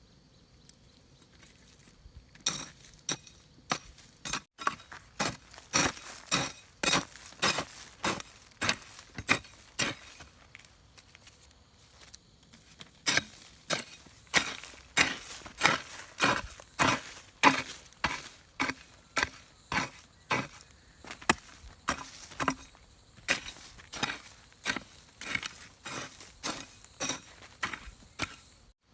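A steady run of sharp striking blows, about two a second, starting a couple of seconds in, pausing briefly about halfway, then resuming.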